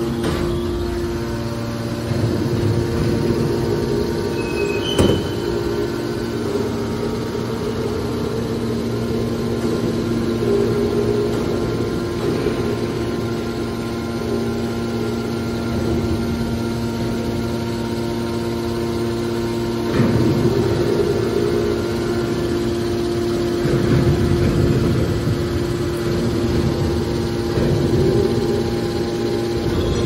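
Electric motors driving a scrap metal baler's hydraulic pumps, running with a steady hum and a constant whine. There is a sharp click about five seconds in and a few louder swells of noise in the second half.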